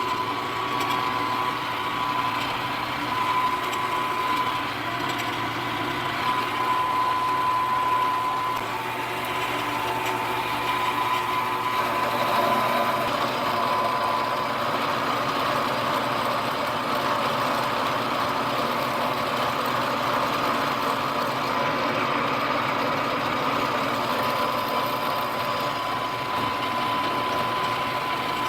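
Milling machine running steadily with a high steady whine, its solid carbide end mill cutting the profile as the work is fed. About twelve seconds in the cutting sound gets rougher and fuller.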